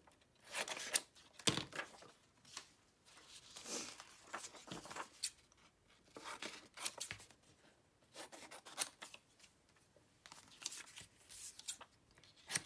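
Scissors snipping through a strip of patterned decorative paper, in short runs of cuts with pauses between them.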